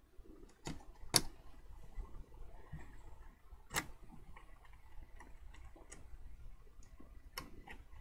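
Scattered small clicks and taps as a USB port clip is slid back into place over an Xbox Series S motherboard in its chassis. The sharpest click comes a little over a second in, with others just before four seconds and a pair near the end.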